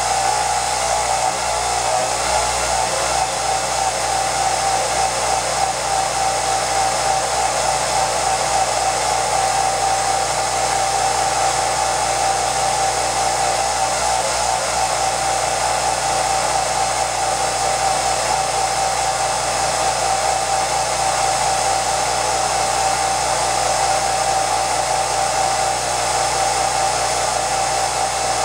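A home-movie film projector running: a steady mechanical whir with a constant mid-pitched whine over hiss.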